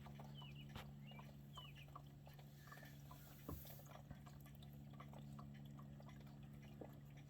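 Near silence: a faint steady low hum with a couple of faint high bird chirps early on and a few soft clicks.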